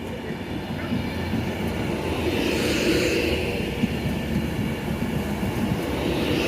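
Passenger train running through the station close by, its rumble growing louder over the first few seconds and then holding steady.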